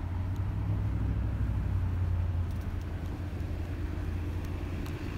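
A motor vehicle's engine runs with a low hum, strongest for the first two seconds or so, over steady street traffic noise.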